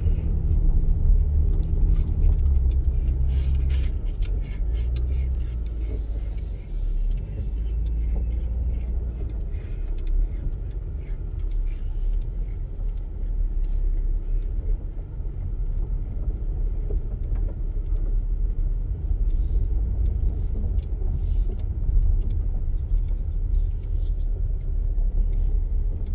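Car driving, with a steady low engine and road rumble; the engine note drops a couple of seconds in.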